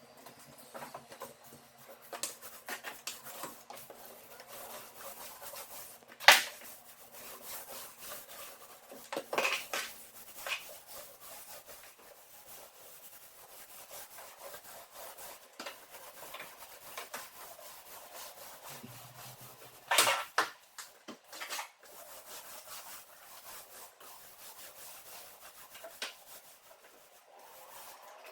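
Rubbing finish onto pine floorboards: a steady scraping over the wood, broken by occasional sharp knocks, the loudest about six seconds in and another around twenty seconds.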